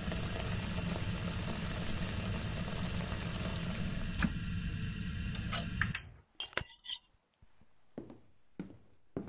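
Food sizzling in a frying pan on a stove, steady, until it cuts off about six seconds in. Then a quick run of clinks and a few separate knocks of a plate and knife being handled.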